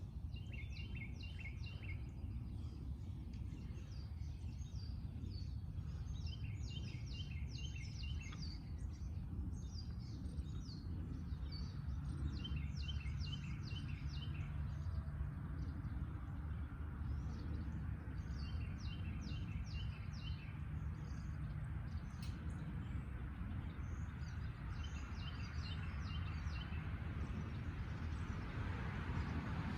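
A songbird singing the same short phrase of quick, high chirps about every six seconds, over a steady low background rumble. A rushing noise swells near the end.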